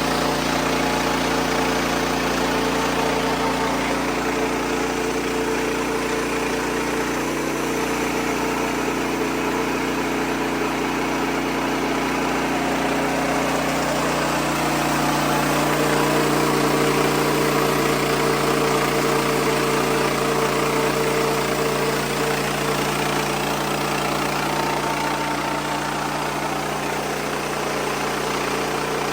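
Wood-Mizer LX55 portable band sawmill running steadily, its engine holding an even pitch while the band blade cuts through a hickory log.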